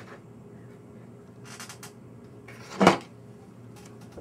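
Handling noises as a metal electronics case is opened for a teardown: a faint rustle, then one loud knock of a hard object against the table about three seconds in.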